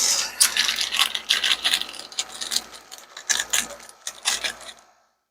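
Small hard parts rattling and clinking as they are handled, a dense run of quick irregular clicks that stops abruptly near the end.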